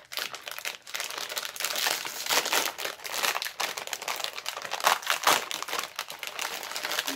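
Crinkly plastic snack packaging rustling and crackling as a bag of rolled wafers is handled and opened by hand, with louder crackles about halfway and again near the end.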